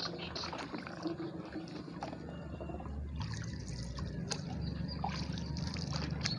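Paddle strokes in calm water: water trickling and dripping off the paddle blade beside a wooden boat's hull, over a steady low rumble and a few small knocks.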